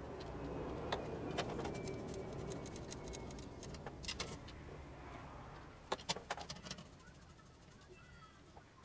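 Small scattered clicks and taps of screws and fittings being handled and set into a carbon-fibre RC helicopter frame, with a quick run of clicks about six seconds in, over a low rumble that fades away.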